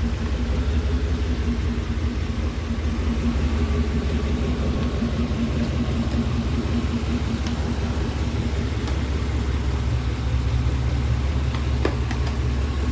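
Truck engine idling steadily with a clicking tick, which the owner takes for a lifter tick.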